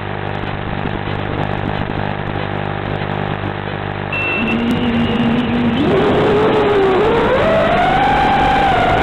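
HGLRC XJB-145 mini FPV quadcopter's brushless motors and propellers, a steady hum at first. From about four seconds in they spin up into a whine that climbs in pitch in steps and grows louder as the quad throttles up to take off.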